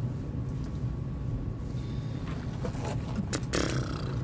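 Steady low outdoor background hum, with a few short scuffs and a brief rustle near the end.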